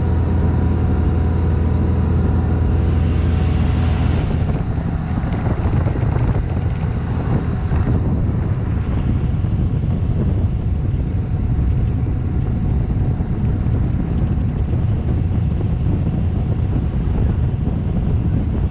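A boat underway, heard from a berth on board: the engine runs as a steady low hum for about the first four seconds, then a rougher rushing rumble of the hull moving through water takes over.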